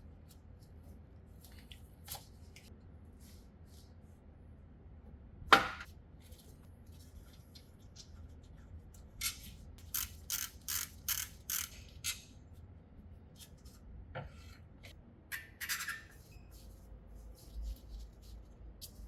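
Hand tools and brake parts being handled: one sharp clack about five seconds in, then a run of about six short scraping or hissing strokes, roughly two a second, and scattered lighter clicks.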